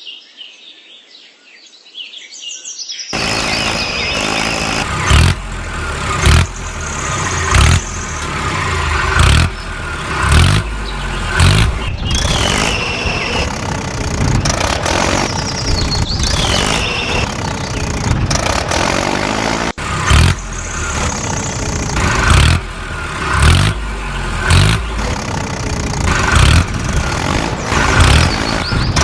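A vehicle engine sound, likely a toy or cartoon tractor, running under a regular low thumping beat that comes about every second and a bit, with gliding high tones on top. It starts loud about three seconds in, after a quieter opening with short bird-like chirps.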